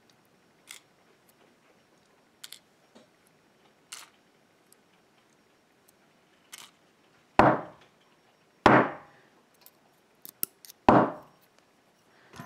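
Small metal clicks as a disassembled pin-tumbler lock's parts are handled, then three loud knocks as the lock housing is rapped against a hard surface to shake a spring stuck in one of its chambers loose.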